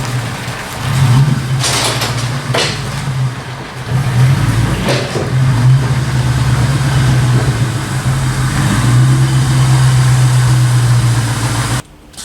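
Supercharged Ford V8 of a 2001 Mustang GT running, its steady exhaust note swelling in level a few times with the revs, then cut off suddenly near the end.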